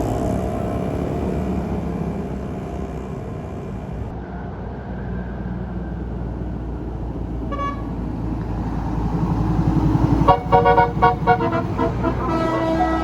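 A bus's multi-tone telolet horn, basuri style, plays over the steady rumble of the passing bus's engine. A short toot sounds about seven and a half seconds in. About ten seconds in comes a rapid string of short toots at several pitches, the loudest part, and then a held horn note near the end.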